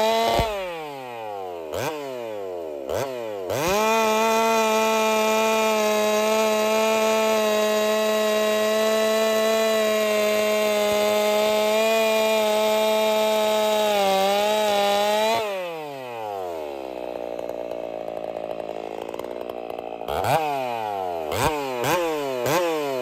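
Two-stroke chainsaw cutting through a log at full throttle, its engine holding steady high revs for about eleven seconds. Before the cut it drops off and blips twice. After the cut it falls to idle, takes several quick throttle blips, and revs up again at the end.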